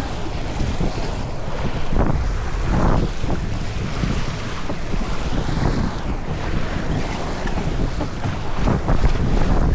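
Wind buffeting the microphone over water rushing and slapping against the hull of a racing sailboat under way, with brief louder surges of spray a few times.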